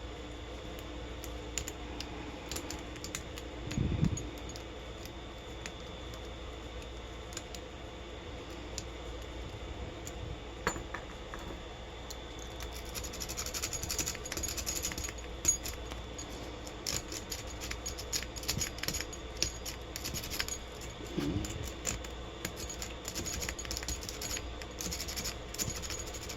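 Lock picks working in the keyway of a 50 mm brass padlock: faint metallic scratching and many small clicks of pick and tension wrench, getting busier about halfway through, with a couple of soft bumps. The lock has not opened.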